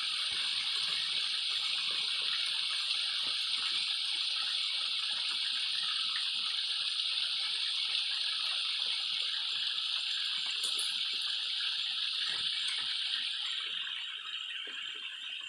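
Steady rushing of a waterfall, easing off a little near the end.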